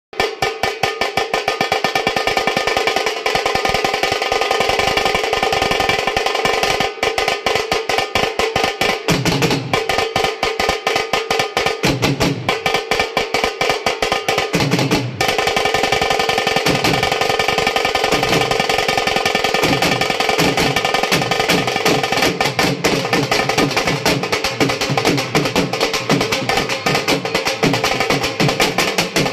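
Several dhol drums played together with sticks: a fast, unbroken rhythm of sharp stick strikes on the drumheads, with deeper bass beats joining at intervals from about a third of the way in.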